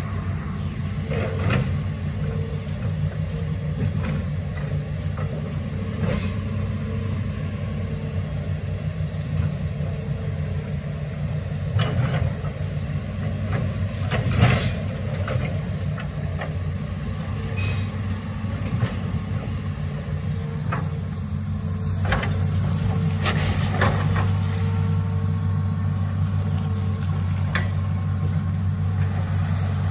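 Hitachi Zaxis 210 amphibious excavator's diesel engine running steadily while it digs, with scattered sharp knocks; the engine grows a little louder about two-thirds of the way through.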